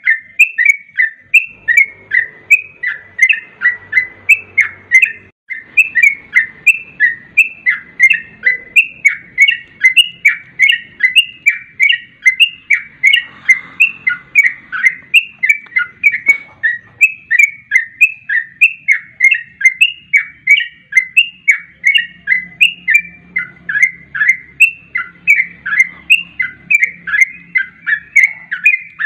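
Yellow-vented bulbul (cucak trucuk) singing a fast, rapid-fire song of short chirping notes repeated without a break, used as a lure call to set other trucuk singing.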